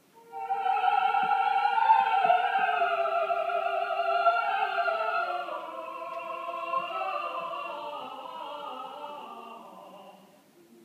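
Two opera singers, among them a soprano, sing a duet in one long held phrase. It starts about half a second in: one voice holds a steady note while the other slides downward, and the sound fades away near the end.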